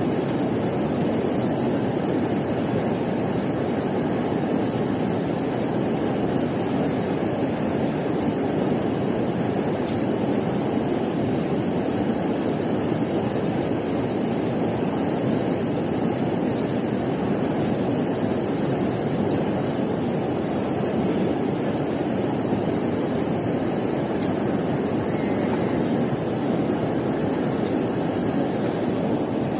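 A steady rushing noise without a break, with no distinct sounds standing out.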